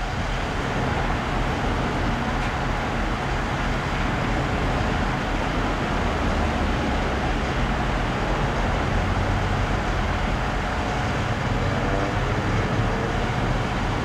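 Steady engine rumble of construction machinery running, a constant hum with no distinct knocks or starts.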